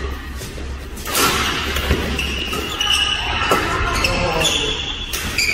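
Badminton doubles rally: rackets strike the shuttlecock several times, about a second apart, while court shoes squeak on the floor between shots. The hits ring on in a large, echoing hall.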